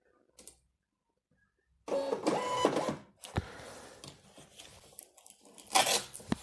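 Xprinter XP-365B direct thermal label printer printing and feeding out a label: a whining motor burst about two seconds in, then quieter feeding. Near the end there is a short rip as the label is torn off.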